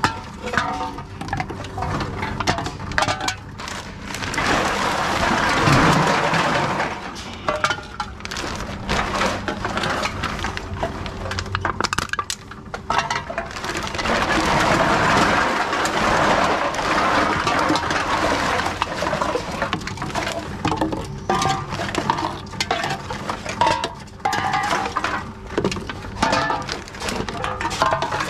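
Empty aluminium drink cans and bottles clinking and knocking as they are picked out of a trolley and fed one at a time into a reverse vending machine, over a faint steady low hum. Twice the clinks give way to longer rustling noise, the second time as a plastic bag is handled.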